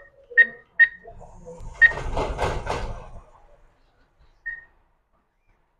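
ATM keypad beeping as keys are pressed: two short beeps early, a third just before two seconds in, and one more about four and a half seconds in. Between the third and fourth beeps the machine's mechanism whirs and rattles for about a second and a half.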